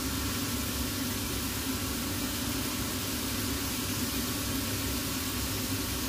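Cobbler's shoe finishing machine running with a steady hum and hiss, its spinning sanding wheel grinding the edge of a heel's rubber-and-leather top lift.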